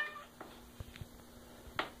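Domestic cat meowing with a stuffed toy held in its mouth; one call trails off right at the start, followed by a few light clicks and taps.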